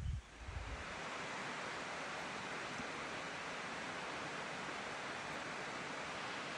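Steady rush of a mountain stream's water pouring over rocks, an even hiss that sets in within the first second and holds unchanged. A few low thumps come right at the start.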